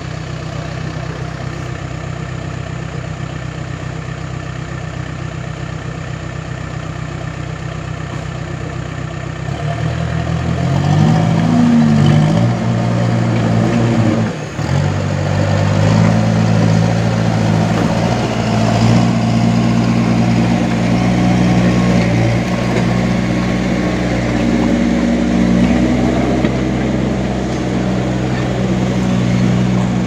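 Heavy diesel engine idling steadily, then revving up about ten seconds in and running harder and louder, with a brief dip near the middle.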